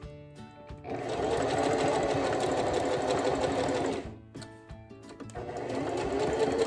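Electric sewing machine stitching through fabric and appliqué, running in two bursts: about three seconds of steady stitching, a pause, then a shorter run near the end that builds up in loudness.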